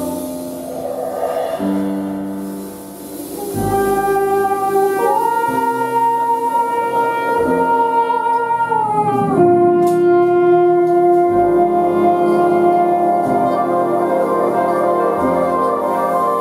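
Large jazz ensemble playing slow, sustained chords, brass and saxophones holding long notes. The sound dips softly about two seconds in, swells again at about three and a half seconds, and the chord changes every few seconds.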